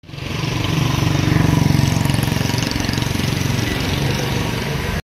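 An engine running steadily close by, with a fast even pulsing beat; it cuts off suddenly near the end.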